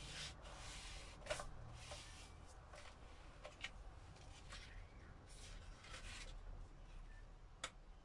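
Faint rustling and rubbing of paper in several short spells as a paint-soaked string is drawn out from between sheets of card held flat by hand, then the top sheet is lifted; a small sharp click near the end.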